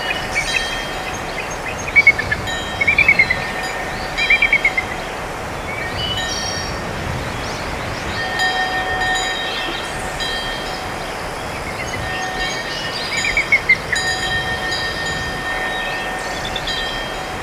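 A Samsung Galaxy S III ringtone playing: a steady rushing background with short chirping trills that recur every second or so, and clusters of high chime tones.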